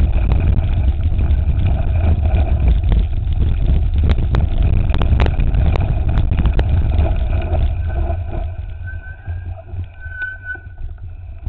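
Wind buffeting a handlebar-mounted camera's microphone as a mountain bike rolls down a rocky dirt trail, with the bike rattling and sharp knocks as it hits stones. The rumble eases off about eight seconds in.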